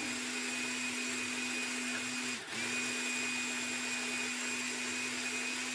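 Countertop blender motor running steadily, grinding dried onion pieces into onion powder. About two and a half seconds in, its tone drops and stops for a moment, then the motor runs again.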